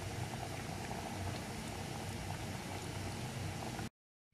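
Sambar (lentil and drumstick curry) boiling in a pot: a steady bubbling with fine crackles, which cuts off abruptly near the end.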